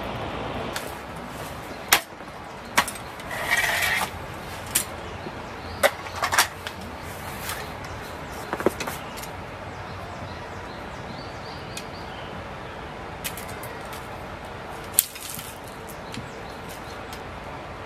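Sharp knocks and clicks, scattered irregularly and mostly bunched in the first few seconds, with a short noisy scrape about three and a half seconds in, over a steady background hiss.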